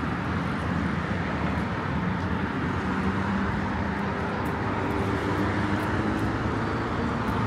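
Road traffic running steadily past, with engine and tyre noise. A low engine hum holds for a few seconds in the middle.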